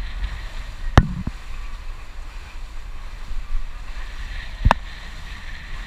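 Wind rumbling on the microphone aboard a moving boat, with a wash of water noise and two sharp knocks, about a second in and again later.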